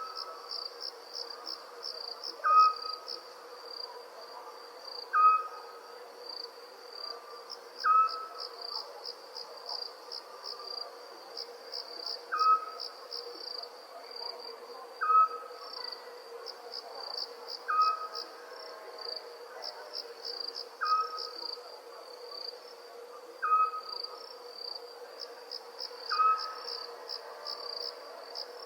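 Crickets chirping steadily in fast pulsing trills, with an owl giving a short single hoot about every two and a half seconds. The hoots are the loudest sounds. A faint steady low tone lies underneath.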